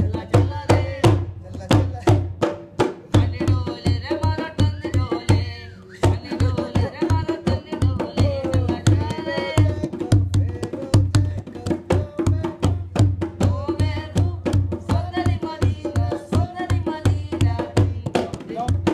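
Hand drum beaten in a quick, steady rhythm of about four strokes a second, with high pitched calls gliding up and down over it: the live music that goes with a Rajasthani string-puppet show.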